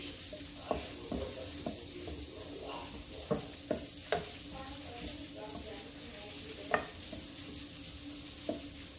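Sake and soy pan sauce sizzling gently in a frying pan while a pat of butter is stirred in with a spatula to thicken it. Scattered sharp taps and scrapes of the spatula against the pan.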